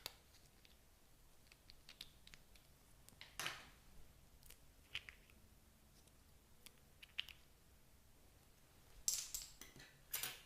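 Slime being mixed and worked by hand: scattered sticky clicks and a few short squelches, with a louder cluster near the end.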